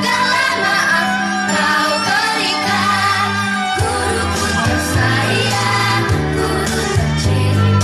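Kindergarten children's choir singing to backing music, with a bass line that changes note every second or so.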